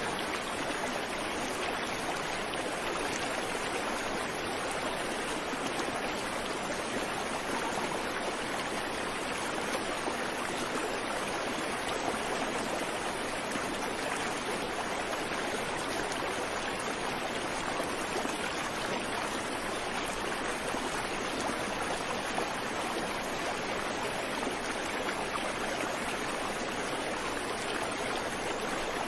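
Creek water flowing and babbling over rocks, a steady even rush with no birdsong.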